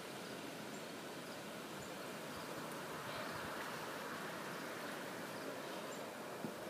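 Faint, steady outdoor background hiss with no distinct event, swelling slightly in the middle.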